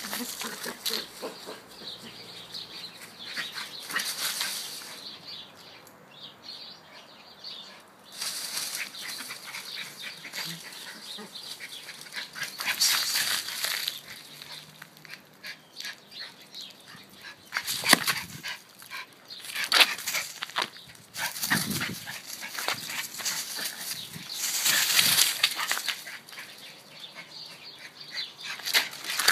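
Two puppies playing and scuffling, with rustling over dry leaves and occasional short barks, the loudest of them in the second half.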